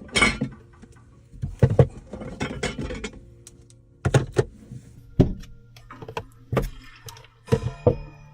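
Objects being handled in a small space: a series of about ten sharp knocks and clatters at uneven intervals, over a low steady hum.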